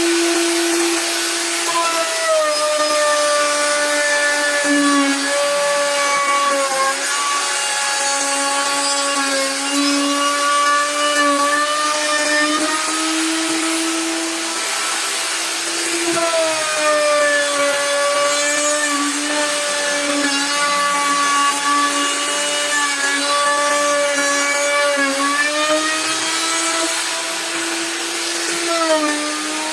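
An electric power tool's motor running continuously as it works wood, a steady whine over a hiss. Its pitch sags and recovers several times as the tool is loaded.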